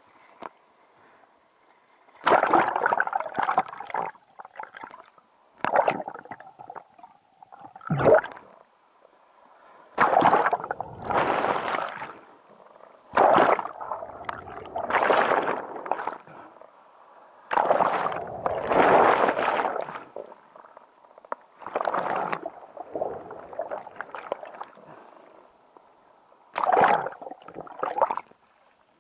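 Sea water sloshing and gurgling in irregular bursts a second or two long, recurring every few seconds.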